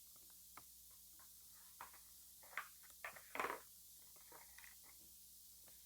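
Wood glue (PVA all-purpose bond) being worked by hand, making faint sticky crackles and scattered ticks. A cluster of short crackles comes in the middle, loudest about three and a half seconds in.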